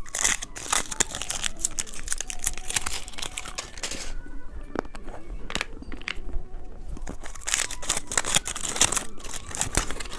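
Plastic candy wrapper crinkling and tearing as it is handled and opened: a dense run of sharp crackles with short pauses.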